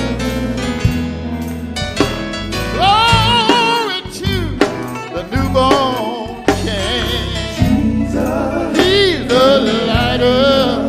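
Live gospel group performing: a lead singer sings with heavy vibrato over a band of electric guitar, bass guitar, drums and keyboard.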